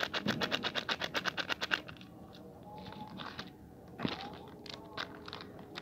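A foil spice packet tapped rapidly, about ten taps a second, to shake cumin powder into a steel bowl. The tapping stops about two seconds in, and a few faint crinkles and clicks follow, with one sharper knock about four seconds in as the packet is handled and put down.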